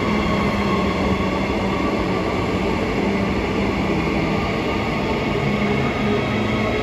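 Transperth electric suburban train pulling out along the platform: a steady electric hum with several held tones over the rumble of the train, without change in level.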